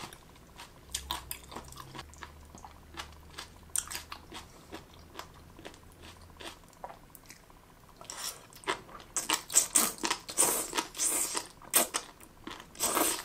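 Close-up chewing of crunchy, gelatinous jellyfish strips. Scattered small crunches at first, then from about eight seconds in a dense run of louder, wet crunching as she bites into a fresh mouthful.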